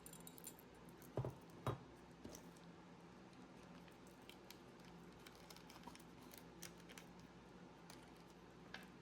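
Faint handling of small glass beads and their packaging: two soft knocks between one and two seconds in, then scattered light clicks over a low steady room hum.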